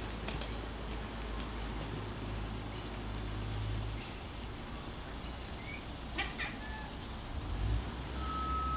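Domestic cat vocalizing at a puppy that is pestering it, a sign the cat is getting annoyed, with a couple of short sharp sounds a little past the middle.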